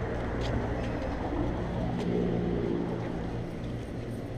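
A steady low mechanical hum, with a couple of faint clicks.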